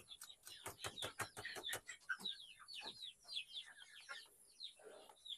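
Young chicks cheeping in short, repeated falling chirps, with scattered soft clicks and scrapes from a plastic spoon stirring wet feed mash in a plastic bucket.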